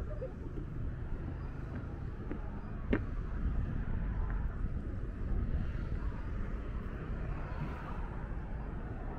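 Outdoor city ambience: a steady low rumble, with one sharp click about three seconds in.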